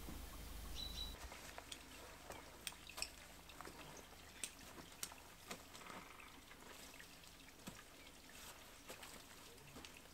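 Quiet forest ambience: a brief bird chirp near the start, then faint, irregular ticks and crackles scattered through the rest.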